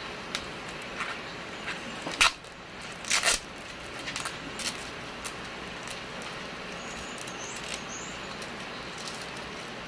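Packing tape being peeled and picked off a tape-wrapped plastic fish-shipping bag: short crackles and rustles, the two loudest a little after two and three seconds in.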